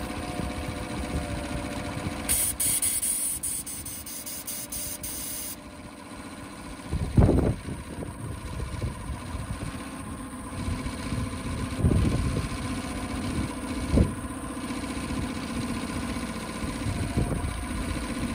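Honda 8 hp four-stroke outboard running steadily at idle in a test tub. Near the start comes a hiss of about three seconds, an air blow gun blasting compressed air, and later a few short louder surges from the engine.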